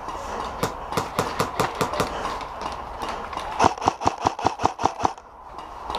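Airsoft gun firing two quick strings of shots, about seven a second, the second string louder.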